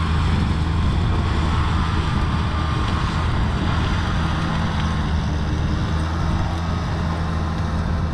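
Farm tractor engine running steadily with a low, even hum as it plows a flooded rice paddy.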